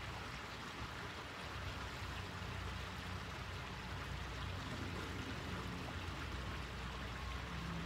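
Steady rushing background noise with a low hum underneath, like flowing water or a running motor, with no distinct events.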